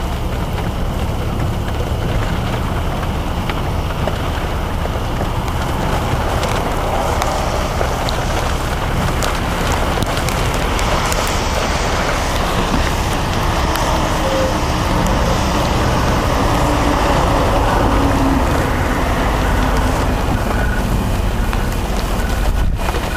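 Strong storm wind blowing on the microphone, with rain. It is a steady, loud rush of noise that swells a little past the middle.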